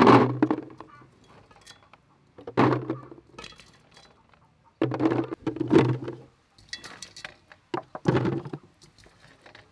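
Small green jujube fruits poured and dropped by hand into a clear plastic jar, clattering in against the plastic and each other in several separate bursts of knocks and clicks.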